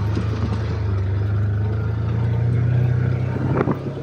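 A vehicle engine running at a steady speed with a low hum, with a few light knocks near the end.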